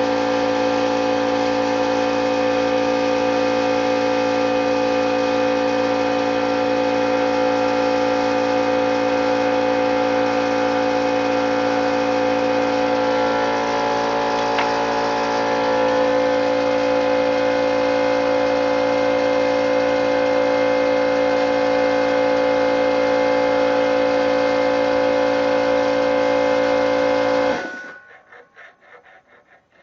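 A 1/4-inch pneumatic die grinder running at full speed with a steady, high-pitched whine as it grinds down a weld bump, its pitch shifting a little about halfway through as the bit bears on the metal. Near the end the air is released and it winds down in a quick fluttering fade.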